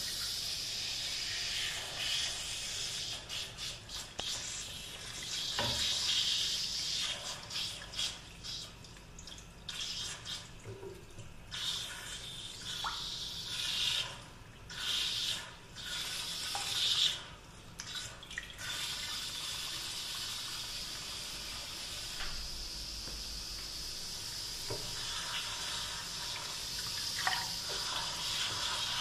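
Running tap water for a hair wash, splashing unevenly for a long middle stretch, then running steadily through the last ten seconds or so.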